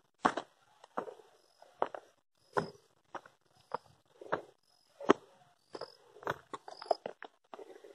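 Footsteps on a loose, stony dirt trail, walking uphill at a steady pace of roughly one step every three-quarters of a second, with a few quicker scuffs near the end.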